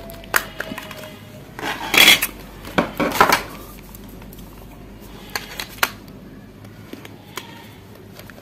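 Plastic clicks and clattering of an E Tachi Star Light keypad phone's back cover and battery being handled, prised off and snapped into place. The loudest clatter comes in two short bursts about two and three seconds in, with single clicks later.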